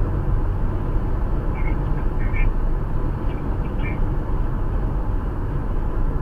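Steady road and engine noise inside a Toyota RAV4's cabin at highway speed. A few faint, short, higher chirps come between about one and a half and four seconds in.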